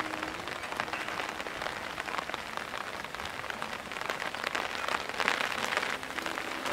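Heavy rain falling on hard surfaces, an even hiss full of small drop impacts, a little louder about five seconds in. Background music is faint at the start and comes back near the end.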